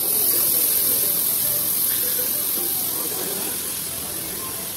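Chocolate sauce hitting a hot sizzler plate under a brownie and ice cream, sizzling loudly with a high hiss as it boils on the metal, the hiss easing off gradually.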